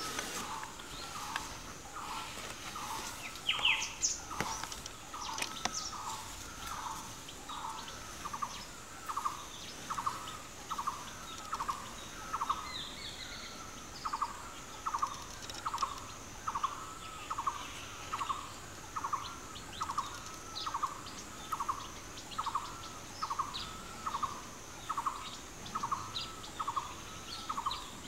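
A bird calling one short note over and over at an even pace, a little more than once a second, with a few brief high chirps from other birds about three to five seconds in and a steady high insect drone behind.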